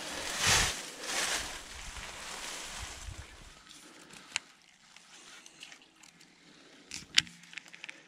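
A cast with a baitcasting rod and reel: a whoosh as the rod swings, then line running off the spool for about three seconds, fading. A few sharp clicks follow from the reel as the retrieve begins.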